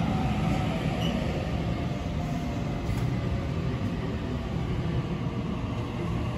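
Double-deck electric suburban train rolling past the platform at low speed, a steady rumble of steel wheels on the rails.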